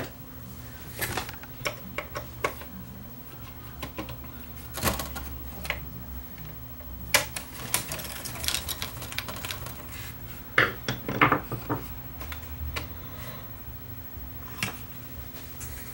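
Scattered clicks and light metallic clatter from hand work on a CD player mechanism. The sheet-metal disc clamp bracket is lifted off the CD deck and set down on the workbench, with the loudest clatter about ten to eleven seconds in. A low steady hum runs underneath.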